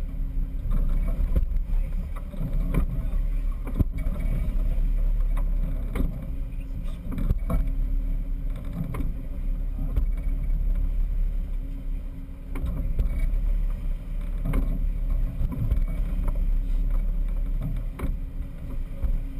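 Sportfishing boat under way: a steady low rumble of engine and hull through the water, with scattered knocks on the deck.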